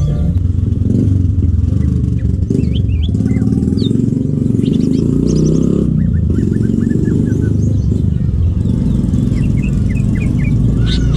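Short, quick chirps and whistled notes of a cucak ijo (green leafbird), coming in scattered bursts and thickest near the end, over a loud, steady low rumble.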